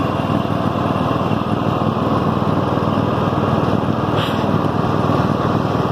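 Toro riding lawn mower's 22-horsepower Kohler 7000-series V-twin engine running steadily while the mower drives across the lawn.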